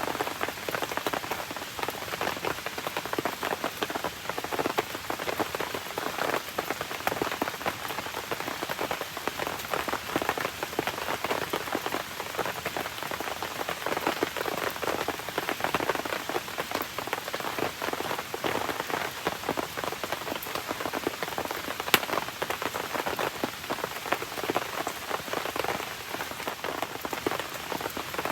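Steady rain pattering down in a dense patter of small drops, with one sharp pop about three quarters of the way through.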